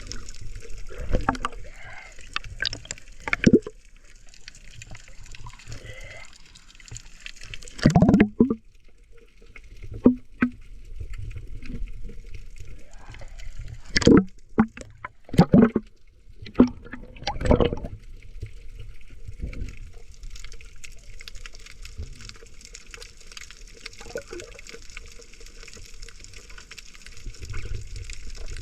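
Water sloshing and gurgling around a snorkeler's GoPro, with irregular loud thumps and splashes, bunched in the first two-thirds, then a steadier wash of water.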